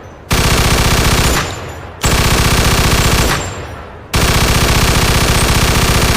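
MG-42 machine gun firing at a very rapid rate in bursts: two bursts of about a second each, each trailing off in an echo, then a third burst about four seconds in that keeps going.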